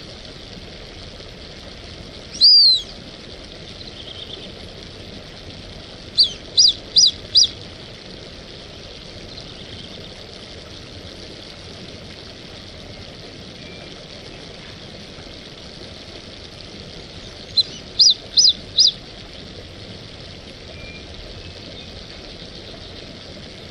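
Brazilian teal (marreca ananaí) whistling: one high arched call about two and a half seconds in, a run of four short whistles around six to seven seconds in, and another run of four near eighteen seconds, over a steady hiss.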